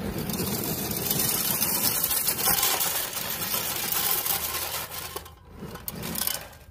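Tamiya Bullhead RC monster truck's electric motor and gearbox running under load as it drags a weighted pull sled across gravel, with the sled's skid scraping through the stones. It starts suddenly and stops about five seconds in.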